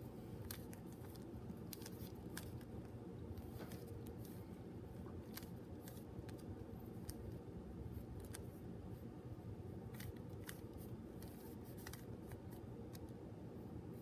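Plastic layers of a mini 3x3 Qiyi keychain speed cube being turned by hand, giving irregular quick clicks and clacks, over a low steady hum.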